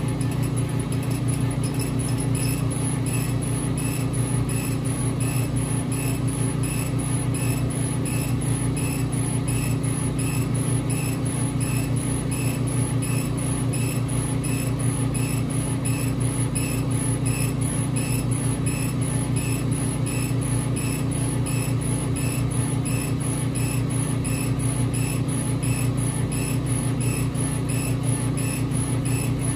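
Epilog Fusion M2 40 laser cutter raster-engraving wood: a steady machine hum, with the engraving head's carriage sweeping back and forth in even passes a little over once a second.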